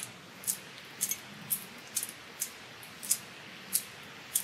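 Small cutters snipping at the end of an electrical wire, trimming and scoring its insulation: short, sharp, high clicks about twice a second.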